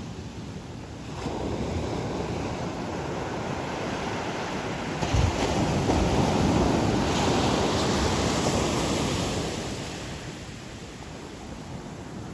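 Sea surf on a beach: the wash builds about a second in, a wave breaks with a sudden surge about five seconds in and stays loud for several seconds, then the wash fades away.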